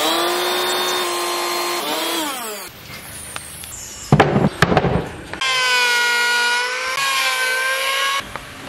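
A power tool runs at a steady high pitch, then winds down about two seconds in. Heavy knocks follow as a wooden block is set down on a bench. Then a small electric chainsaw runs steadily for about three seconds as it cuts into the block.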